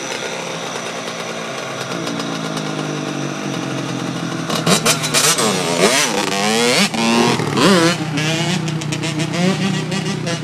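Dirt bike engine running steadily, then revved hard several times from about four and a half seconds in, its pitch sweeping up and down, before settling back to a steady run near the end.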